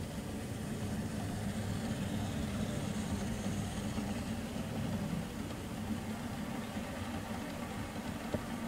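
Model freight train rolling past close by: a steady low rumble of the wheels on the track and the locomotive's motor, a little louder in the first half and easing toward the end.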